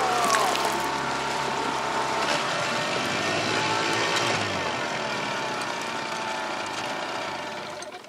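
A boat's 9.9 hp Gladiator outboard motor running under way. Its pitch shifts briefly twice, and it drops away near the end.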